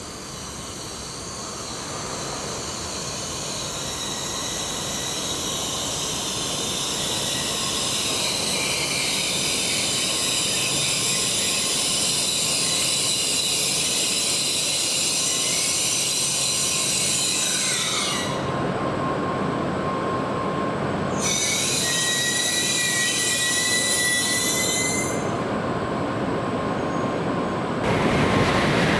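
Tokaido Shinkansen train passing at high speed through a sharp curve, growing louder over the first several seconds, with a high, many-toned wheel squeal over the steady rush and rumble of the train. The squeal cuts out abruptly twice near the end while the rumble carries on.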